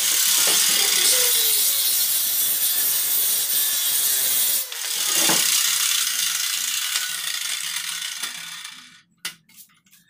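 Handheld electric circular saw running and cutting wooden board, with a brief break about four and a half seconds in before it runs again, then winding down and stopping near the end. A few sharp clicks follow.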